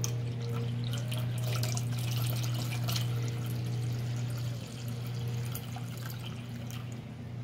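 Cool water poured from a glass measuring cup into a stainless steel mixing bowl of dissolved jello, splashing and trickling, thinning out near the end. A steady low hum runs underneath.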